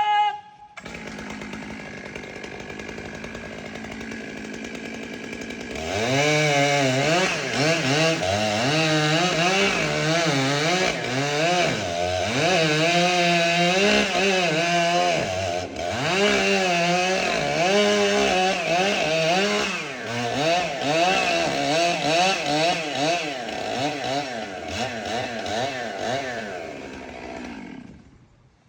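Chainsaw idling for about six seconds, then run at full throttle through wood, its pitch dipping and recovering again and again as the chain bogs under load. The engine drops back and the sound fades out near the end.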